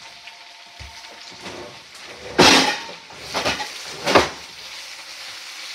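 Plastic shopping bag rustling in three loud crinkles about two, three and four seconds in as it is handled, over the faint steady sizzle of spinach and onions frying in a pan.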